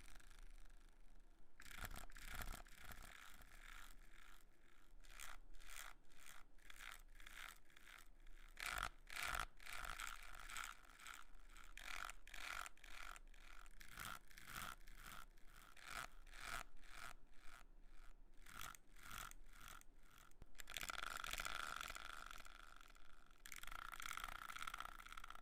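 A brush swept repeatedly across a surface in short, regular strokes, a couple a second, after a brief pause at the start; near the end the strokes turn into a few seconds of longer, steadier brushing.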